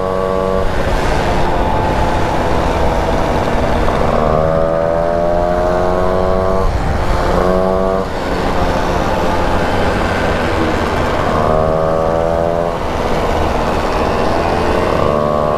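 Two-stroke moped engine running at high revs under way, its note climbing over a few seconds and dropping back briefly about halfway through and again near the end, with wind rushing over the microphone. It is being run hard to clear out carbon.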